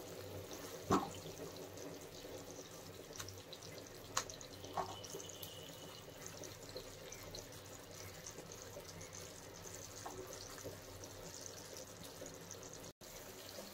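Faint, wet stirring of a thick kofta gravy in a nonstick pan with a silicone spatula, with a few soft clicks, the loudest about a second in.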